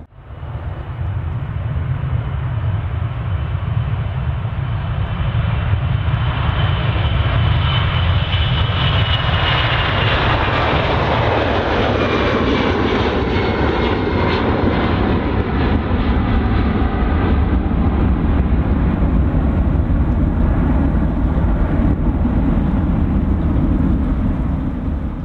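Boeing 757 airliner's twin jet engines at takeoff thrust: a steady low rumble with a high whine that slides down in pitch between about six and twelve seconds in as the jet passes.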